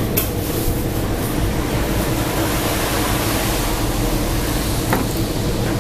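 Steady hum and rushing background noise in a small eatery, such as ventilation or refrigeration equipment, with a faint tick near the start and another near the end.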